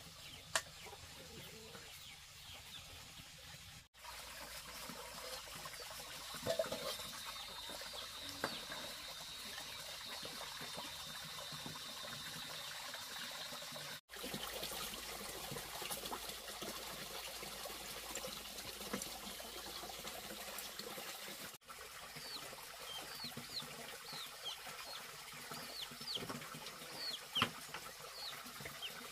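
Outdoor ambience of birds calling, with many short sharp chirps in the last third. The sound breaks off abruptly at three edit points.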